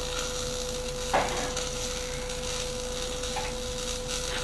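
Steady hum with a light hiss in the background, and a single knock about a second in as a rusty steel bar is set against a truck's steel frame.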